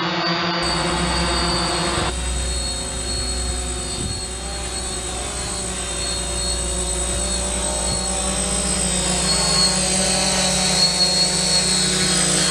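DJI Phantom quadcopter in flight, its four electric motors and propellers giving a steady buzzing hum whose pitch wavers slightly as it holds position. The hum grows louder toward the end as the drone comes in close overhead.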